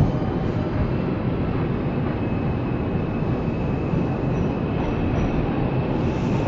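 Subway train running along the track, heard from inside the car: a steady rumble of wheels and motors. A faint high-pitched whine comes in about two seconds in.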